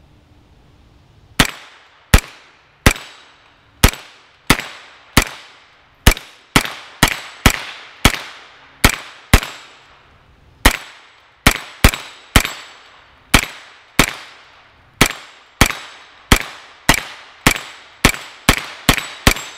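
A Freedom Ordnance FX-9 9mm carbine fired semi-automatically: a string of about thirty sharp shots, each ringing out briefly, emptying a 30-round magazine. The shots start about a second and a half in, at an uneven pace of roughly one to three a second, and come faster near the end.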